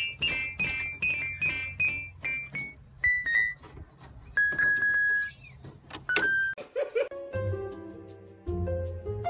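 Background music: quick, repeated plucked notes for the first couple of seconds, then a few held tones. About seven seconds in it changes to a different piece with a low bass line.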